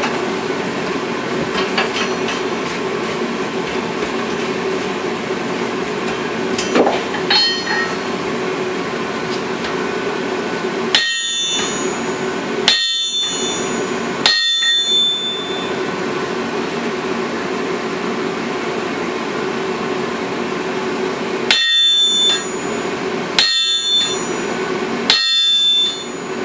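Sledgehammer blows striking hot steel on an anvil while forging a claw hammer head, each blow a sharp metallic clang that rings briefly. There is a lighter strike about seven seconds in, then three heavy blows about two seconds apart, then a pause, then three more near the end, all over a steady hum.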